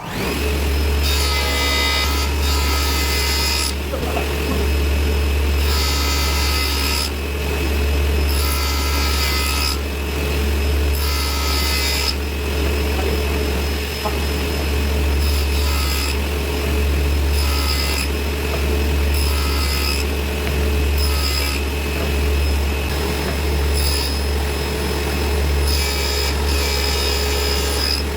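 Table saw running with a steady motor hum, sawing wood in repeated short passes: a brighter, whining cutting sound comes and goes every second or two.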